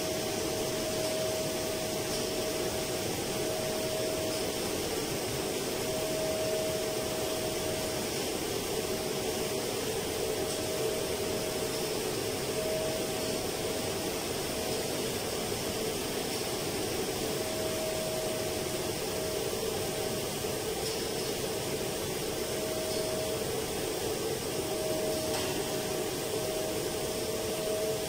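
Steady machinery noise from running fans and motors, with a humming tone that fades in and out every second or two.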